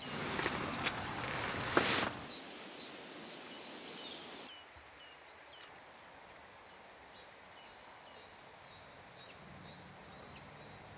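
Quiet outdoor ambience with small birds chirping off and on throughout. For the first two seconds a louder hiss-like noise sits over it.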